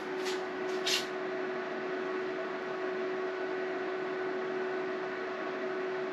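Vectrix VX-1 electric scooter's onboard charger running while it charges the battery: a steady fan-like hum with one constant tone. Two short clicks in the first second.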